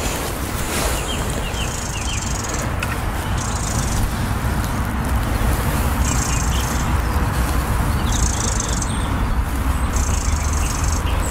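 Wind buffeting the microphone with a steady low rumble, while a small songbird repeats a short, high-pitched song phrase about every two seconds.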